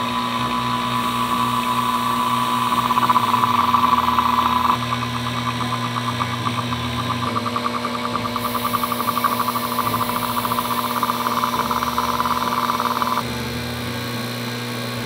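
A power tool running steadily with a high whine and a fast buzzing flutter; the sound drops in level abruptly about five seconds in and again near the end.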